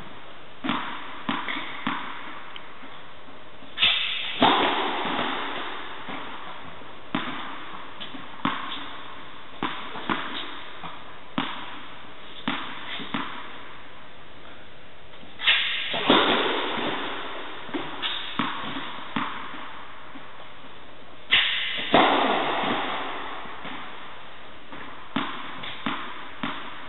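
Tennis practice serves in an indoor hall: a tennis ball bounced on the court several times between serves, and three loud serves, each a sharp crack followed half a second later by a second impact, ringing on in the hall's echo.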